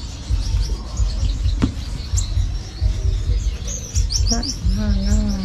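Gouldian finches chirping: a continual run of short, high chirps over a low rumble, with a single sharp click about a second and a half in. A person's voice comes in near the end.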